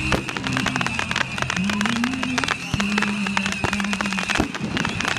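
Aerial fireworks popping and crackling in quick succession, with a few louder cracks. A low held pitched tone sounds under the first four seconds, moving up and down in steps.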